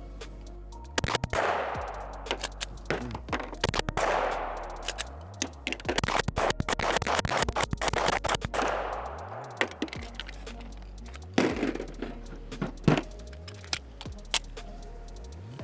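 Gen 3 Glock 17 9mm pistol fired rapidly, with shots coming in quick strings throughout, over background music with a steady bass.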